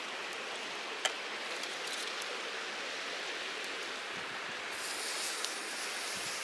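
Mountain stream rushing steadily, with a single sharp click about a second in.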